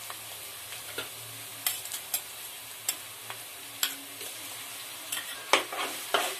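Chopped onions sizzling in hot oil in a pan. A spoon clicks and knocks several times as ginger-garlic paste is spooned in, with the loudest knocks near the end.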